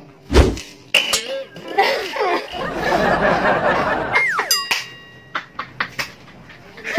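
A heavy thump about half a second in from a kick at a plastic bottle, followed by a few lighter knocks and laughing. Near the middle there is a short falling tone with a brief ringing.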